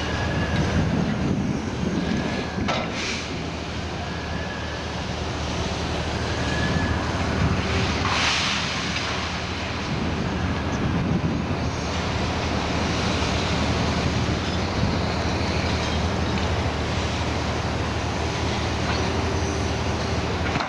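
Diesel engines of Liebherr 954 scrap-handling excavators running steadily under load, with a faint whine that rises and falls every couple of seconds early on. Scrap metal clatters sharply twice, about 3 and 8 seconds in.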